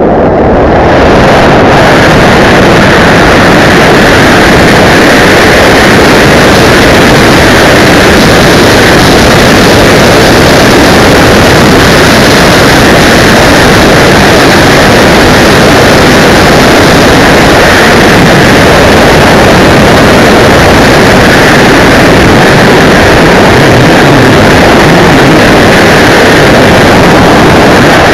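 Loud, steady rush of freefall wind on the BASE jumper's camera microphone, the air noise overloading the recording.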